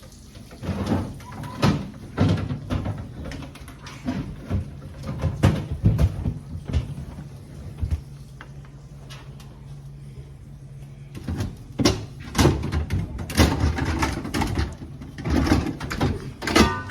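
Refrigerator shelves and drawers being handled and slid in and out, making irregular knocks, clatters and sliding scrapes, with a lull in the middle. A steady low hum runs underneath for the first two-thirds.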